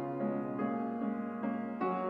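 Fazioli grand piano played solo in a classical recital: struck notes and chords change about every half second over sustained, pedalled tones.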